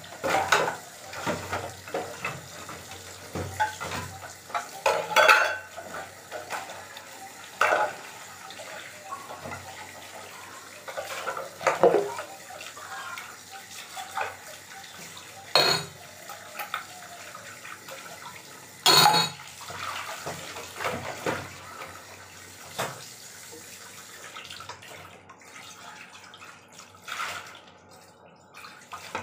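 Tap water splashing into a sink while steel utensils, a tumbler and then a pot, are rinsed by hand. Sharp metal clinks and knocks come every few seconds. The running water thins out near the end.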